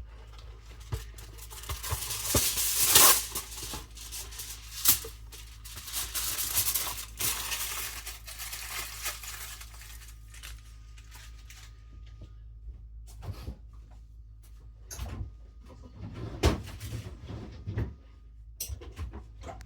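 Vegetable-prep handling sounds: several seconds of rustling and crinkling, then scattered knocks and clatters of utensils and produce against a cutting board and bowl.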